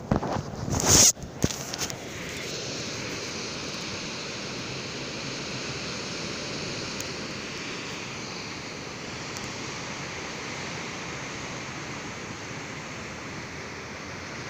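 Sea surf washing over rocks below a cliff, a steady rushing hiss of breaking waves. It opens with about two seconds of loud knocks and a short loud rush about a second in, handling noise on the phone's microphone.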